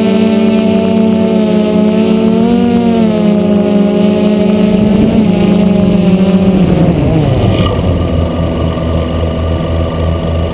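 DJI F450 multirotor's electric motors and propellers buzzing close to the microphone, a steady hum that rises briefly about two and a half seconds in. About seven seconds in the pitch slides down as the craft sets down in the grass, and the lower buzz fades near the end.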